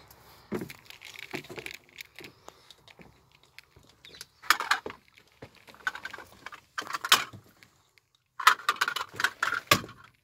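Irregular clattering, knocks and rustles from someone moving about among the seats inside a minibus's passenger compartment. The loudest clatters come about halfway through and near the end.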